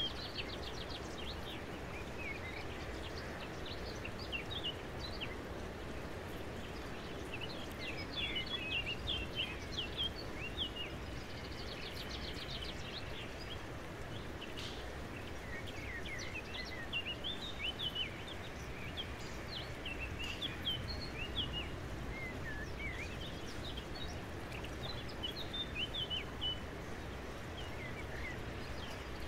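Small birds chirping and trilling in short, scattered calls over a steady background of outdoor noise.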